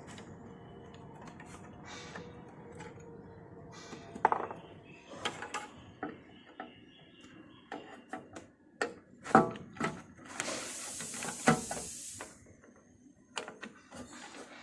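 Clinks and knocks of metal tools and panels as a window air conditioner is unscrewed and taken apart, with a hiss lasting about two seconds a little past the middle.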